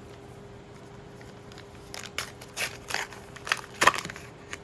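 Foil wrapper of a Star Wars: Unlimited booster pack crinkling and crackling as it is handled and torn open, in a quick cluster starting about halfway through.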